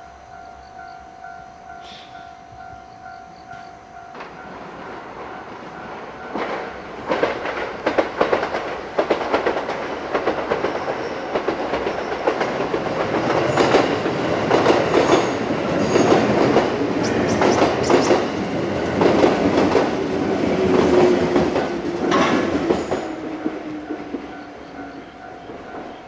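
A Japanese level-crossing alarm dings in a steady repeated pattern. From about six seconds in, a JR 221 series six-car electric train rushes past over the crossing, its wheels clacking over the rail joints; the noise peaks mid-way and then fades. The crossing alarm comes through again near the end.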